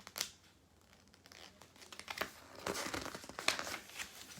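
Paper rustling and crinkling as book pages are handled and turned, with a sharp click about a quarter second in and a longer rustle in the second half.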